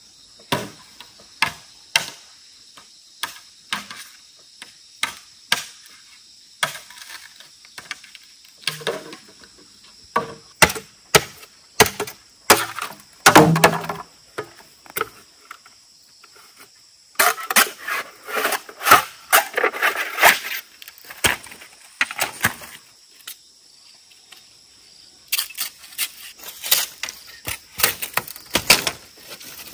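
Repeated sharp knocks, about one a second at first, then quicker runs of blows, over a steady high chirring of insects.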